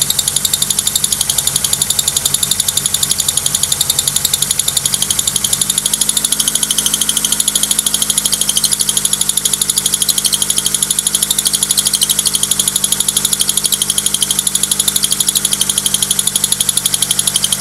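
Honda Accord engine running with its alternator drive belt squealing, a high-pitched squeal with a rapid, even pulse. The belt is loose after the alternator replacement and needs adjusting.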